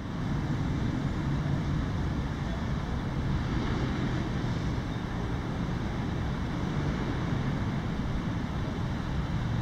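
Steady low background rumble with a faint constant hum; no transmission comes over the scanner.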